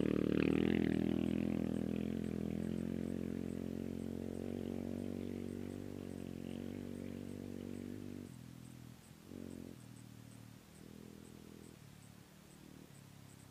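Off-road desert race vehicle's engine pulling away after passing, its note dropping in pitch and fading over about eight seconds. After that it comes and goes faintly in the distance.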